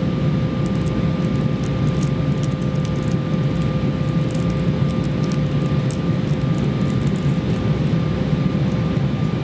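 Steady cabin noise of an Embraer ERJ-170 jet airliner in flight on approach, heard from a rear seat: an even, low rumble of the wing-mounted CF34 turbofan engines and the airflow, with a faint constant whine held above it.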